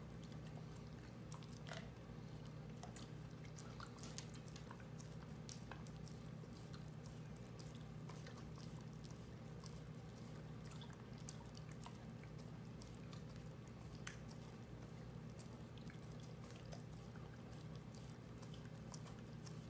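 An Australian Shepherd/Great Pyrenees mix dog licking and lapping at an ice cream bar, making faint wet clicking and smacking sounds at an irregular pace over a steady low hum.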